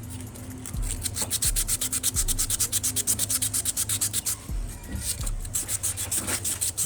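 Rust being scrubbed off a metal part of a car AC compressor by hand, in rapid back-and-forth strokes at about eight a second. The scrubbing pauses briefly about two-thirds of the way through, then starts again.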